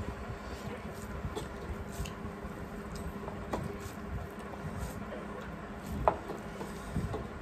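Soft wet squishing of fingers mixing rice and curry on steel plates, with chewing and light scattered clicks over a faint steady hum; one sharper click near the end.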